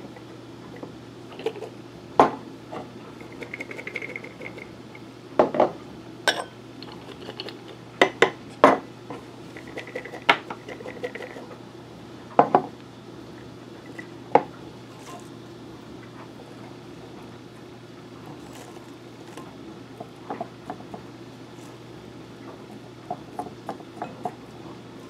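Glass quart canning jars clinking and knocking as chunks of potato and carrot are packed in by hand and the jars are shifted on the table. About a dozen sharp knocks come in the first half, then lighter ticks near the end, over a steady low hum.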